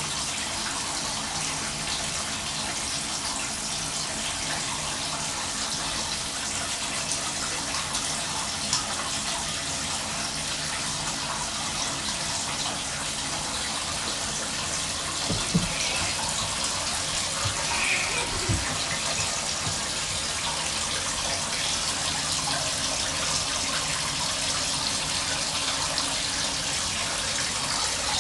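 Water running steadily from a tap into a bathtub, an even rushing hiss, with a few faint brief sounds past the middle.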